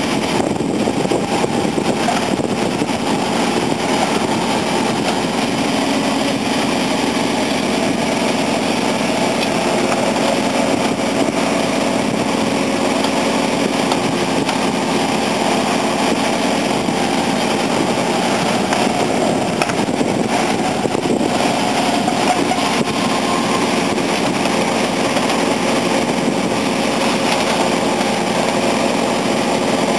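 Heavy diesel engines of a JCB 3CX backhoe loader and a Komatsu D65EX crawler bulldozer running steadily and evenly throughout, with no clear revving.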